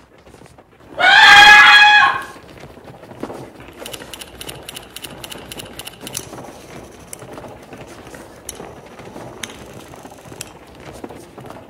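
A woman's loud, high-pitched scream lasting about a second, starting about a second in. It is followed by faint scattered ticks and thin high tones.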